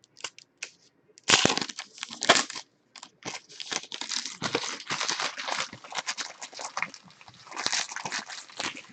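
Plastic wrapping being torn and crumpled as a box of baseball trading cards is opened: a run of dense, irregular crinkling and crackling that starts with a few small clicks and grows busier about a second in.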